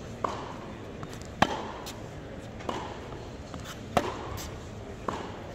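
Tennis rally: a tennis ball struck by racquets and bouncing on a hard court, about five sharp pops with a short echo of the hall after each. The loudest two, about a second and a half and four seconds in, are the near player's racquet strikes.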